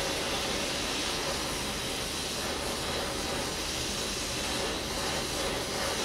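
Brazing torch flame hissing steadily as it heats a copper pipe joint.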